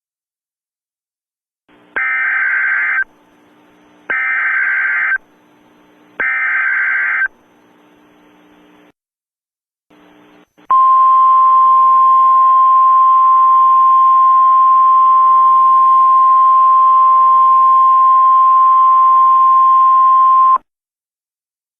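Emergency Alert System header: three one-second bursts of digital data tones, about two seconds apart. After a short pause comes the steady single-pitch attention tone, held for about ten seconds before it cuts off sharply, over a faint broadcast hiss and hum.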